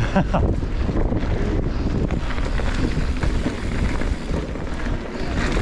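Wind rushing over a chest-mounted camera's microphone while riding a Specialized Levo e-mountain bike along a trail, over a steady low rumble with many small knocks and rattles from the tyres and bike.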